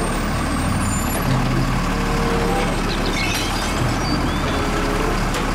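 Automated side-loader garbage truck with its diesel engine running while its hydraulic arm grips and lifts a wheeled trash cart.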